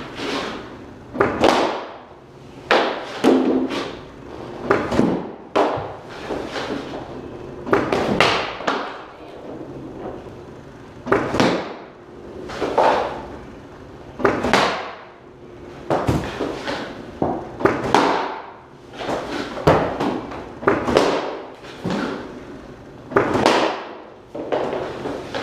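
Hockey pucks fired from a puck machine striking Warrior Ritual G2 goalie pads, glove and blocker and dropping onto synthetic ice, a sharp knock about every second. Each hit rings on in a bare concrete-walled room.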